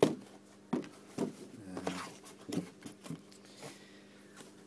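A cardboard box being handled and its flaps opened. A sharp knock comes at the start, then several lighter knocks, taps and rustles, over a faint steady hum.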